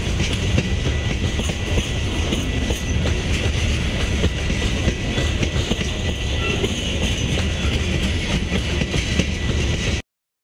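Freight train of covered hopper cars rolling past, heard through a trackside webcam's microphone: a steady rumble and rattle of wheels on the rails with a faint steady high whine. It cuts off suddenly about ten seconds in.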